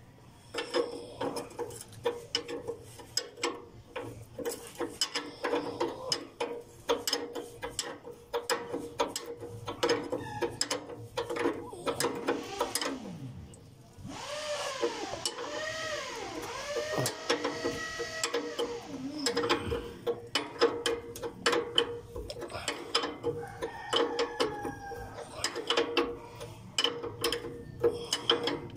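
Ratchet wrench clicking and metal tools clinking in irregular runs while the idler arm and its new bushing are fitted. About halfway through, a wavering squeak rises and falls in pitch for several seconds.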